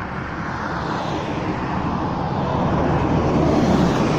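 Bus engine running as the bus drives in, with a steady rumble that grows louder as it approaches and is loudest near the end.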